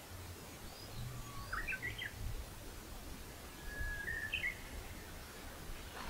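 A songbird singing two short phrases, about a second in and again around four seconds in. Each is a whistled note followed by quicker, higher notes, over a faint low rumble.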